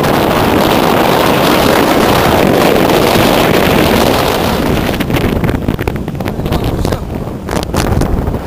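Strong gale-force wind buffeting the microphone in a loud, steady rush that turns gusty and choppy about five seconds in, with rough surf underneath.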